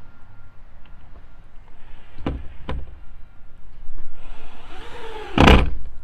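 Cordless drill driving screws into wood, its motor whining and changing pitch under load about four seconds in. Two sharp knocks come before it, and a louder bang near the end.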